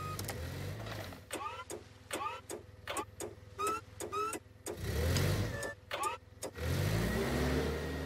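Cartoon forklift engine running and revving as it drives off, surging twice with a rising pitch, about five seconds in and again from about six and a half seconds on. Quick short rising chirps sound several times over the first half.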